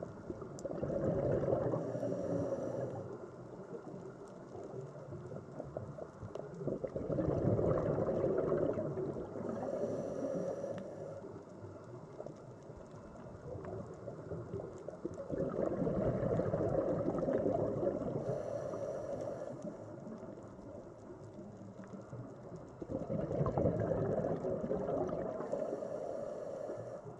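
Sea water ambience: a low rushing surge that swells and fades about every eight seconds, with a faint high hiss at each swell.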